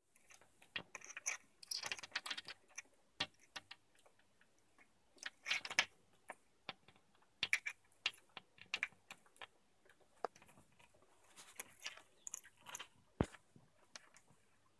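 Rose-ringed parakeet at a window, its beak and claws tapping and scraping on the glass and frame: irregular small clicks and scratchy crackles, some in quick clusters.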